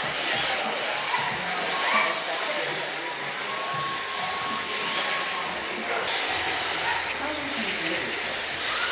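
Whir of small electric RC drift cars' motors and the hiss of their hard tyres sliding on the track surface, swelling briefly now and then, with indistinct voices behind.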